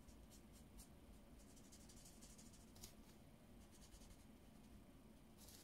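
Faint scratching of a felt-tip marker stroking over paper while colouring in a small stamped image: light, irregular strokes just above near silence.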